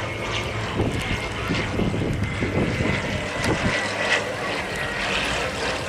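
Engines of two propeller-driven light aircraft droning steadily as they fly past in formation.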